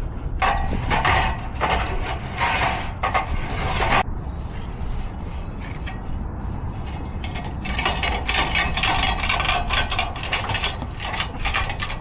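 Mechanical clattering and rattling in irregular clusters over a steady low rumble.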